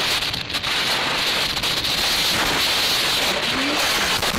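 Heavy wind rushing over a helmet-mounted camera on a motorcycle riding at speed. Near the end come a few knocks as the bike goes down.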